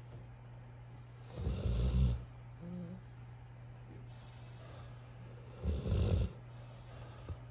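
Puppy snoring while asleep: two loud snores about four seconds apart, each a rough low rattle with a breathy hiss.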